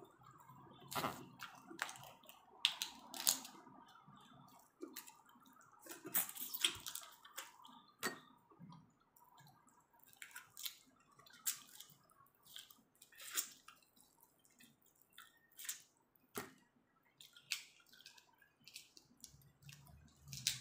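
Wet crackling and squishing of cooked shell-on prawns being peeled by hand and eaten, with chewing, in irregular short clicks.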